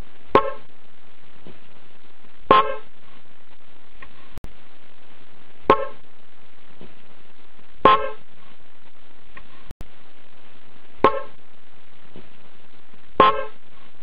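Bosch Rally Evolution electric horns, lying loose and unmounted, sounding six short toots in three pairs over a steady background hiss.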